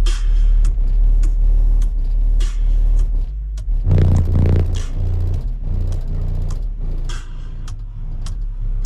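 Bass-heavy music played loud through a car audio system of four Skar ZvX 15-inch subwoofers: a deep sustained bass note with sharp, evenly spaced percussion clicks on top, the bass line moving to higher notes about four seconds in.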